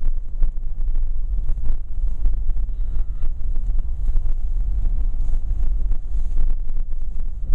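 Wind buffeting the microphone: a loud, unsteady low rumble with a rushing hiss over it.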